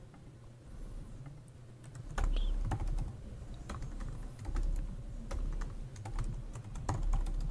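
Typing on a computer keyboard: a run of irregular keystroke clicks.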